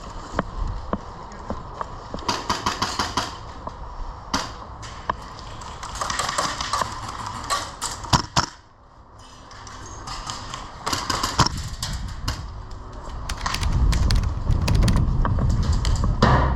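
Airsoft guns firing in short bursts of rapid shots, with scattered single cracks between the bursts. A low rumble on the microphone builds near the end.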